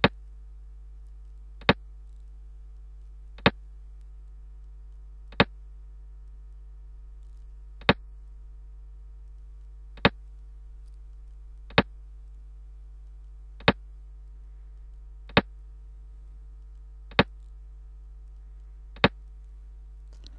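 Sharp single clicks, one roughly every two seconds, each marking a move stepped through on a computer xiangqi board, over a steady low electrical hum.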